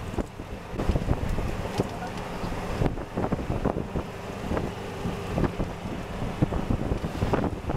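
Wind buffeting the microphone over the rumble of a moving golf cart on the road, with frequent bumps and knocks.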